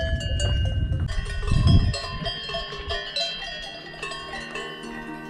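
Several cowbells clanking irregularly, ringing at a number of different pitches, over a low rumble in the first two seconds.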